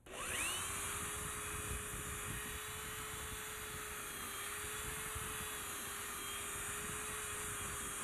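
A handheld power tool starts up with a quick rising whine, then runs steadily, grinding against the inside of a coated frying pan to scratch its surface.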